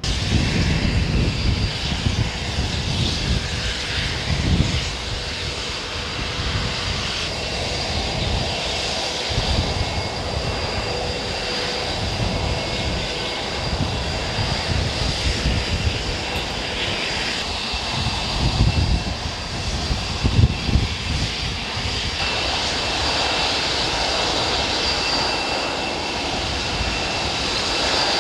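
Jet engines of a B-1 Lancer bomber, its four turbofans, running loud: a deep, uneven rumble under steady high-pitched whines. The sound changes abruptly a few times.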